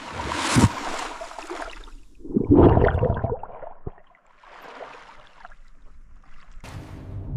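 Water splashing and sloshing in several surges, with a sharp splash about half a second in and a louder, longer one at about two and a half seconds.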